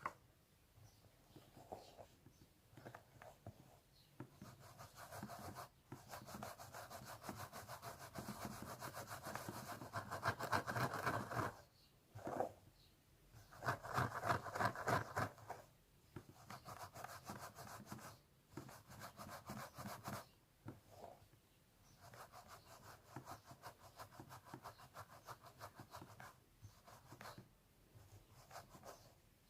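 Fingernails scratching a scalp through the hair, in runs of rapid strokes broken by short pauses, loudest in the middle of the stretch.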